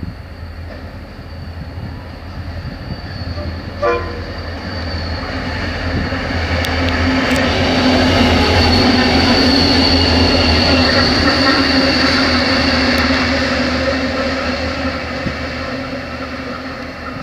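C class diesel-electric locomotives running light past the platform, their engines' rumble building to a peak as they pass close and then fading away. A short sharp sound comes about four seconds in.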